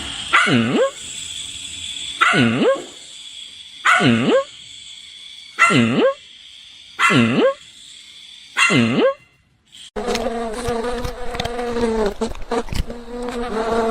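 A dog barks six times at an even pace, each bark a drawn-out call that swoops down in pitch and back up. After a short break, a steady low buzz with scattered clicks takes over.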